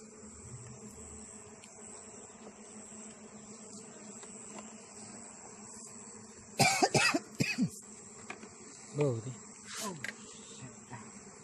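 Steady buzzing hum of Asian honeybees (Apis cerana) at an opened hive box. A person coughs loudly several times in quick succession just past the middle, then twice more, shorter, near the end.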